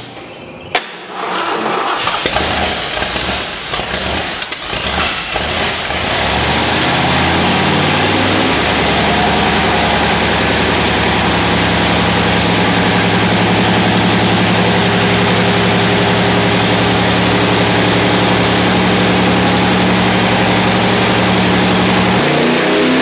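A 460 big-block V8 starts up. After a sharp click, it fires unevenly for a few seconds, then climbs in pitch and settles into a steady high-speed run, racing at full throttle because a carburetor throttle shaft is stuck open. Its note shifts abruptly near the end.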